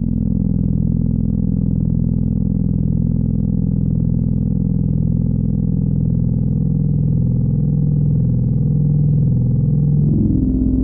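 Technics SY-1010 analog monophonic synthesizer sounding a sustained low droning note through a Korg SD-400 analog delay, its tone slowly wavering as the controls are adjusted. The sound changes abruptly about ten seconds in.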